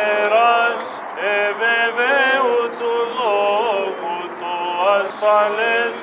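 Voices chanting a Greek Orthodox Byzantine hymn for the blessing of the waters, sung in melodic phrases with short breaks between them.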